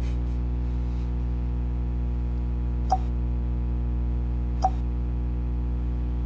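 Two short phone message pings, about three seconds in and again nearly two seconds later, over a steady low hum.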